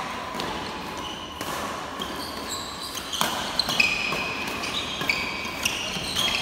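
Doubles badminton rally: sharp racket strikes on the shuttlecock and sports shoes squeaking on the court floor. The squeaks come thick and fast in the second half.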